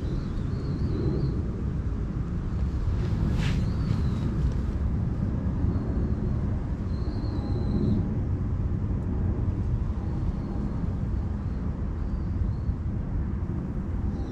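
Wind buffeting the camera microphone outdoors: a steady low rumble, with a few faint high chirps and one sharp click about three and a half seconds in.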